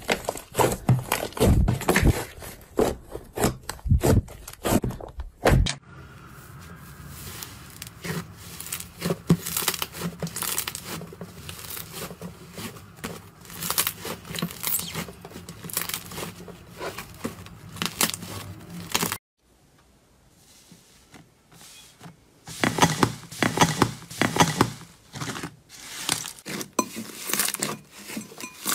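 Hands squeezing, pressing and stretching thick slime: a dense run of wet clicks, crackles and small air pops. The sound changes abruptly twice as one slime gives way to another, with a brief lull near the end before the last one.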